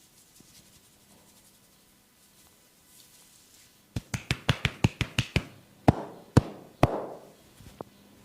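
Percussive head-massage strokes: a quick run of about ten sharp strikes, some six a second, starts about halfway through, then three louder, more ringing strikes and a faint last one near the end.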